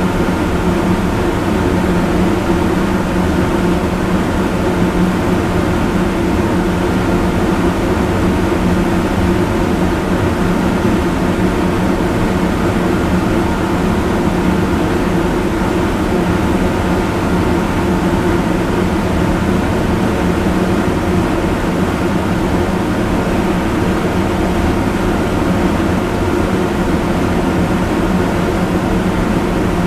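Electric fan running at full speed: a loud, steady rush of air with a low motor hum that does not change.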